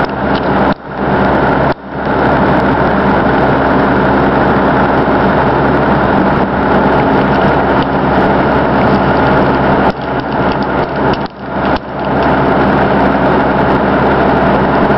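Excavator running with its screening bucket turning, a steady hum under a dense mechanical rattle as soil and stones tumble through the screen. The sound drops out briefly a couple of times near the start and again about three-quarters through.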